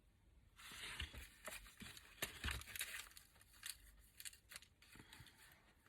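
Craft paper being handled and rustled, with crinkling and small taps, starting about half a second in.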